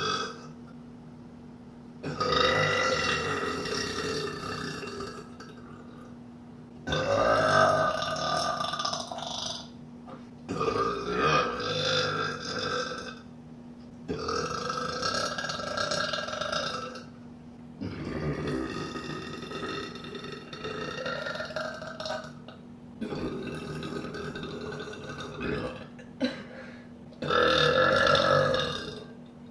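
A woman belching over and over: about seven long, drawn-out burps of two to four seconds each, with brief pauses between them.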